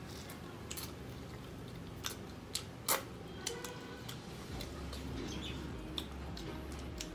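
Eating chicken wings by hand: irregular wet clicks and smacks of chewing, lips and sticky fingers, with one louder snap about three seconds in.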